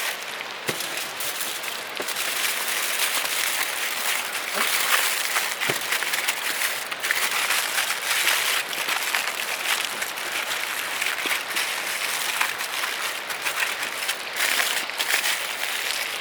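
Steak sizzling in a hot pan: a steady hiss with scattered crackles and spits.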